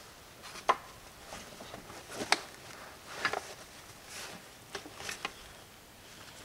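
A backpack being handled while a hatchet is stowed on it and the pack is worked over: half a dozen sharp clicks and knocks with soft fabric rustles between them.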